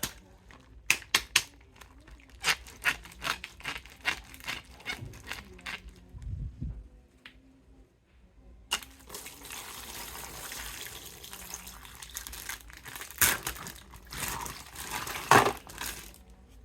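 Plastic toy packaging being opened: a run of sharp clicks and snaps, then, after a short pause, steady crinkling and tearing of plastic wrap with two louder rustles near the end.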